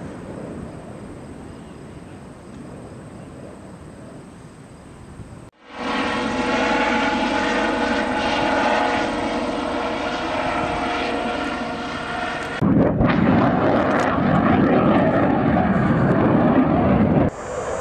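Aircraft sounds in three cut-together takes. First a distant jet's rumble fades. About five and a half seconds in, a helicopter's engine and rotor take over with a steady pitched whine. Near thirteen seconds a loud roar starts suddenly and holds for about four seconds before cutting off.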